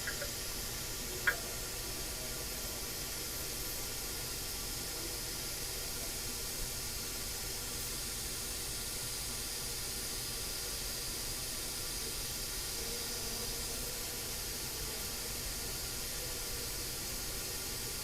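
Steady hiss with a faint background hum, and one sharp click a little over a second in.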